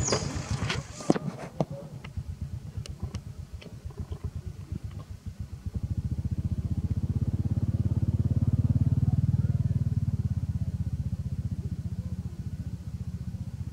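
An engine running nearby: a low, fast pulsing that comes in about six seconds in, grows to its loudest around the middle and then slowly fades.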